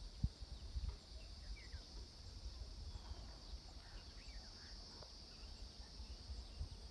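Outdoor nature ambience: a steady high insect drone with scattered short bird chirps, and low wind buffeting the microphone, strongest in the first second.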